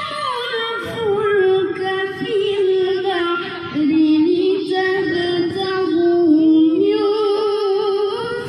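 A young qari reciting the Quran in melodic tilawah style in maqam Rast, holding long high notes with wavering ornamented turns.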